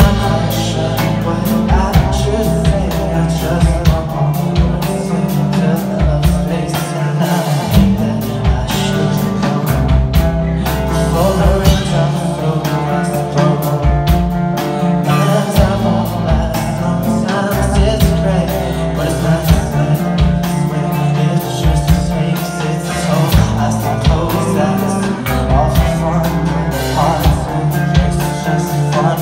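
Pop punk band playing live: electric guitars, bass guitar and drum kit, loud and continuous with a steady drum beat.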